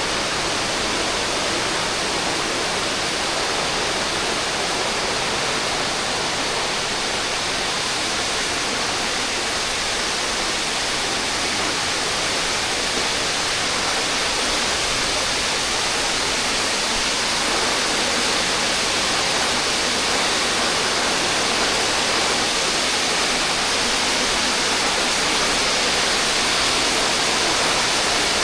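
Waterfall: water falling and splashing in a steady, even rush, growing slightly louder over the span.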